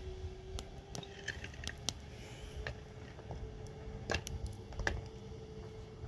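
Small wood fire crackling with scattered sharp pops, two louder ones near the end, over a faint steady hum and wind rumbling on the microphone.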